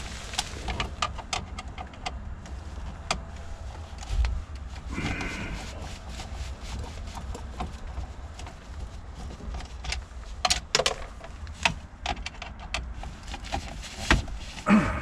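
A screwdriver and plastic dashboard trim clicking, tapping and scraping as the climate-control bezel is pried out of the dash, over a steady low rumble. A brief squeak comes about five seconds in.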